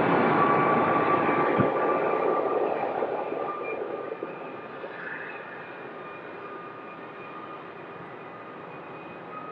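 Distant jet airliner engines, loud at first and fading over the first few seconds, then a steadier, fainter jet whine carrying across the airfield. A single short knock about a second and a half in.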